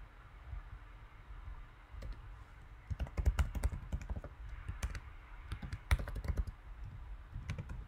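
Typing on a computer keyboard: quick runs of key clicks starting about three seconds in, with a short pause near the end.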